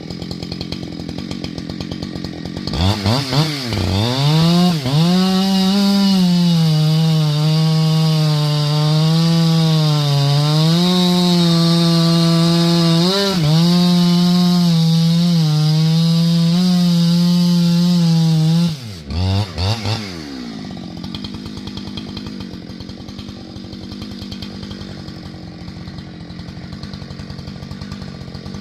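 Two-stroke chainsaw idling, then revving up and running at full throttle through a cut in firewood for about fourteen seconds, its pitch dipping now and then as the chain loads in the wood. It then drops back, gives a couple of quick blips and settles to idle.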